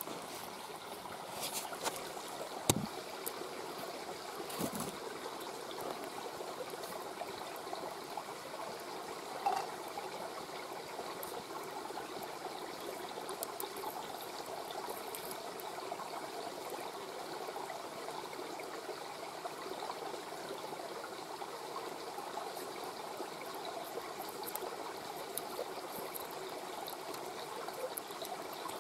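Mountain river murmuring steadily over stones, with scattered small crackles and pops from a wood campfire; a sharper pop about three seconds in.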